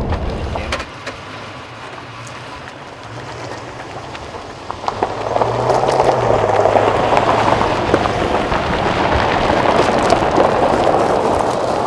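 Running footsteps crunching on a gravel road, a loud, dense crunching that starts about five seconds in. For about the first second a pickup truck's engine rumbles low, then cuts off.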